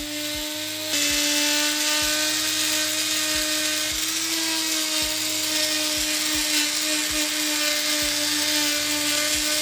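Power tool fitted with a rotary wire brush, running steadily with a high whine and a scratchy hiss as it scrubs the repaired tyre rubber clean.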